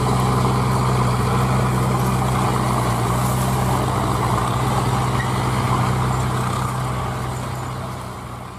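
Diesel engines of a Mahindra Arjun Novo 605 tractor and a JCB backhoe loader running steadily under load as the loader pushes the heavily loaded sugarcane trolley from behind. The engine sound fades out near the end.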